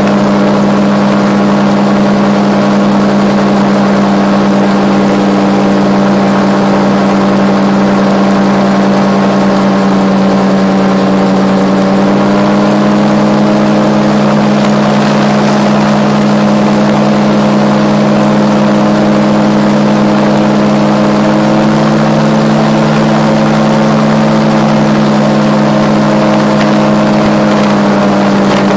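RAF 2000 gyroplane in flight heard from the cockpit: the engine and pusher propeller running steadily at cruise power, with a drone whose pitch rises slightly about twelve seconds in and again later.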